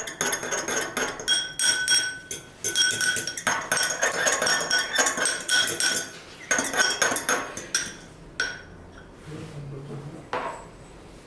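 A utensil stirring briskly in a bowl, clinking and scraping rapidly against its side with a ringing tone. It stops about eight and a half seconds in.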